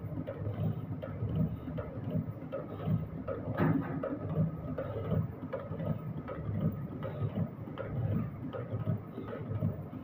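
Water-drop kadi (wire hook) making machine running, with a steady rhythmic mechanical clatter of repeated strokes and a sharp click about three and a half seconds in.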